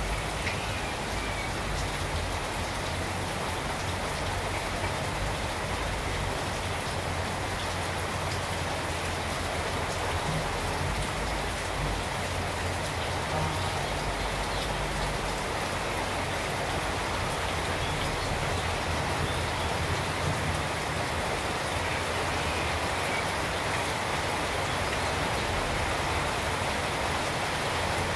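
Steady rain, an even hiss, with a faint low rumble underneath.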